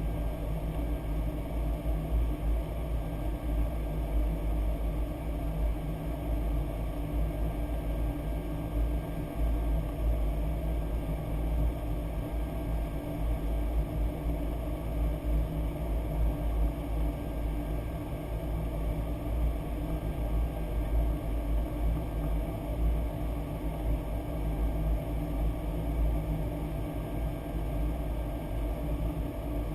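Steady rumble of airflow and jet engines heard inside the flight deck of a Boeing 737-800.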